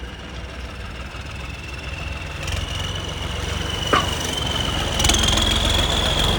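Tractor engine running at idle with a steady low rumble and a thin high whine, growing louder about five seconds in. A brief knock about four seconds in.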